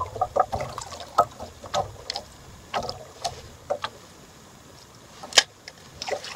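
Small waves lapping and slapping against the hull of an outrigger boat, giving irregular knocks and splashes, with one sharper knock about five seconds in.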